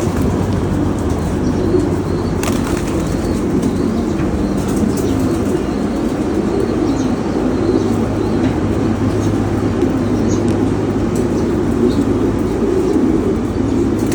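Pigeons, many together, with wings flapping and cooing mixed into a steady fluttering murmur.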